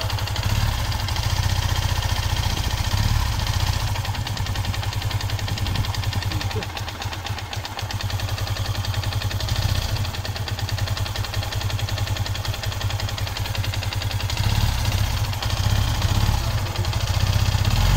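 Yamaha Sniper 150's single-cylinder four-stroke engine idling, its level rising and falling slightly.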